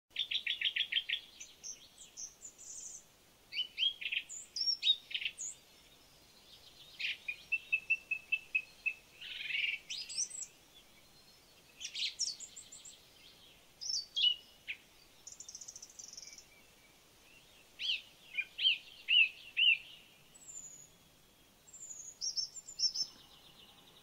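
Songbirds singing and calling: a quick trill at the start, then short whistled notes, rapid repeated phrases and rising and falling sweeps, coming in clusters with brief pauses between them.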